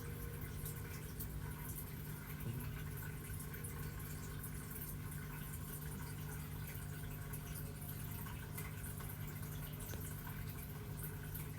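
A sleeping cat snoring, a soft crackly rattle over a steady low hum.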